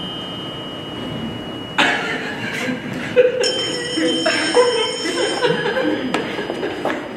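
Audience laughter breaking out suddenly about two seconds in and carrying on, with a faint steady high-pitched tone heard under it at times.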